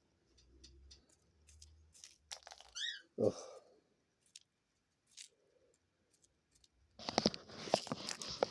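A dove digging through seed with her beak, flicking grains that click and rattle as they scatter. The pecking is sparse at first and turns into a busy, louder run of rattling and rustling about seven seconds in.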